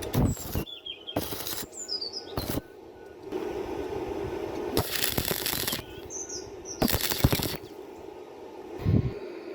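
Stick (manual arc) welder crackling in five short bursts, the longest about a second, as hinges are welded to a metal door.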